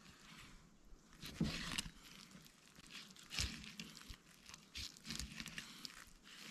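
Knife slicing a whitefish fillet down along the rib bones: faint, irregular crunching and clicking as the blade passes over the ribs.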